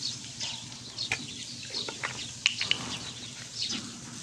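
Small birds chirping repeatedly in short high calls, with a few sharp ticks about halfway through.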